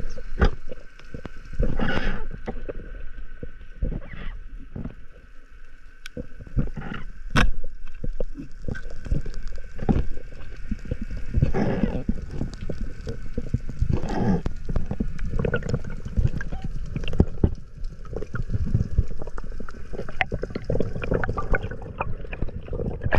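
Underwater sound heard through a camera housing: gurgling bubbles that swell now and then, with many scattered clicks and muffled knocks over a low rumble.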